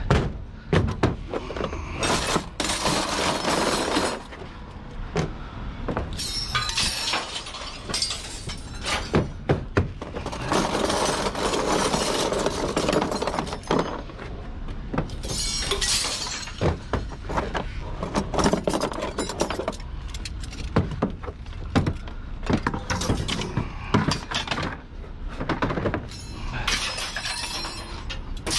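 Scrap metal being handled: a run of clinks and knocks, with several longer clattering crashes as pieces are tossed and pushed about.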